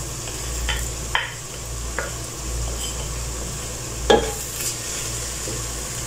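Wooden spoon stirring minced meat (keema) as it sizzles in a non-stick pan, with dried red chillies being scraped off a plate into it. A few sharp knocks of the spoon on the pan or plate, the loudest about four seconds in, over a steady low hum.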